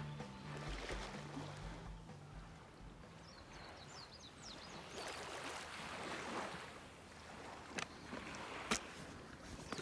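Outdoor waterside ambience: a steady, quiet rush of noise, with the tail of background music fading out in the first few seconds. A brief flurry of high chirps comes around the middle, then two sharp clicks near the end.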